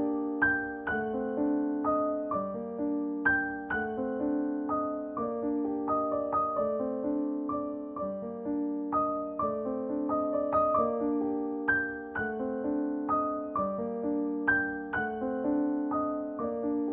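Background piano music: a slow, gentle repeating figure of struck notes over held lower notes.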